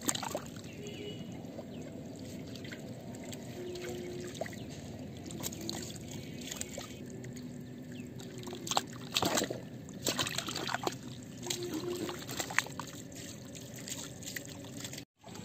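Water trickling and pouring into a muddy pit trap, with catfish splashing and flapping as they drop into it. The splashes are sharpest and most frequent from about nine to thirteen seconds in.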